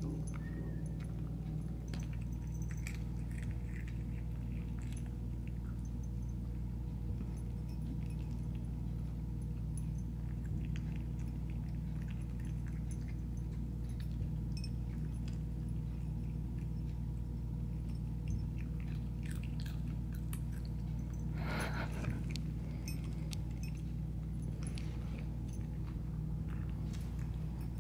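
A cat eating from a ceramic bowl, with soft chewing and small scattered clicks and licks over a steady low hum. One louder noise comes about three-quarters of the way through.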